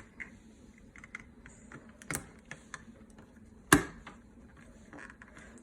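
Plastic Snap Circuits parts being handled and snapped together on the base grid: scattered light clicks, with a sharp snap about two seconds in and a louder one nearly four seconds in.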